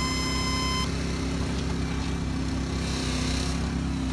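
An engine running steadily with a low drone, with a single electronic beep just under a second long at the start.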